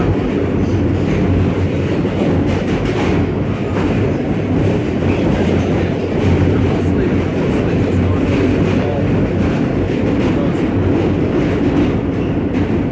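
New York City subway train running on the rails: a loud, steady rumble with rattling and clatter from the wheels and car.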